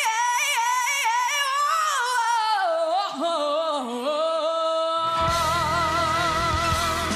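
Female soprano singing high, quick gliding runs with almost no accompaniment, then holding a long note with vibrato as the backing band comes in about five seconds in.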